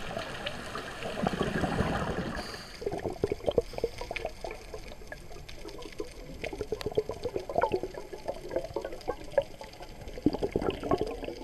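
Scuba diver's exhaust bubbles heard underwater: a denser bubbling rush for the first two and a half seconds or so, then irregular popping and gurgling crackles.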